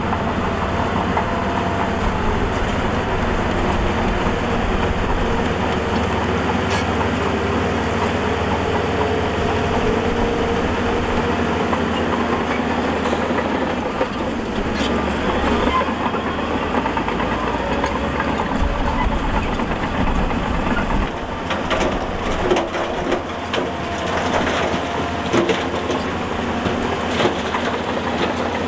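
Diesel engine of a Shantui DH17C2 bulldozer working under load, its pitch rising and falling slightly. In the second half, repeated clanks and knocks join it.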